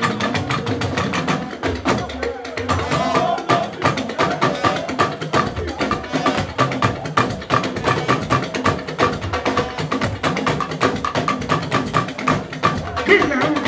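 Live fuji band playing a fast, steady percussion-driven groove, with electric guitar, between vocal lines.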